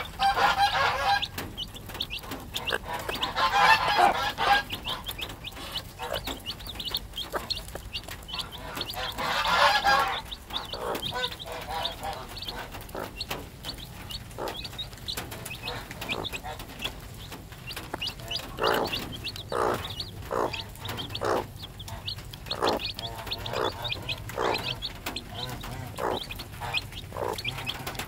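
A broody hen and her three-day-old chicks at a feeder. The chicks peep with short high chirps throughout. Three loud, harsh hen calls come in the first ten seconds, and from about two-thirds of the way in the hen gives a steady run of low clucks, a little under two a second.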